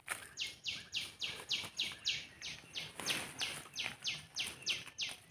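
A bird calling a long, steady series of short, high, down-slurred notes, about three a second.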